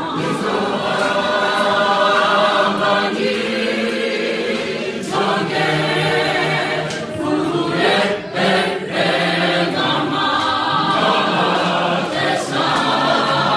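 South African student choir of mixed men's and women's voices singing a gospel song a cappella in isiZulu, in close harmony.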